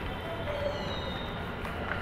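Steady low rumble of a busy station concourse, with faint, indistinct tones drifting over it.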